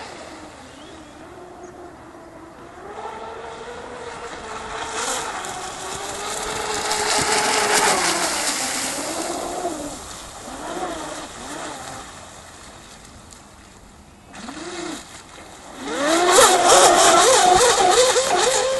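Twin-motor 12S electric RC drag hydroplane running flat out: a whine that rises and falls in pitch with throttle and passing, over the hiss of its spray. It is loudest about seven seconds in, fades, then comes back loud for the last few seconds.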